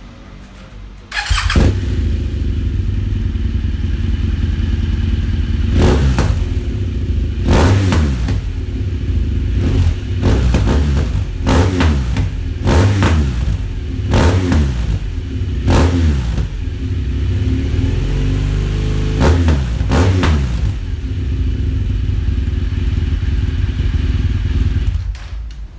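BMW R1200 GS boxer-twin engine breathing through an aftermarket UN1T Garage RAD exhaust. It idles and is revved in a series of quick throttle blips, each rising sharply and falling back to idle.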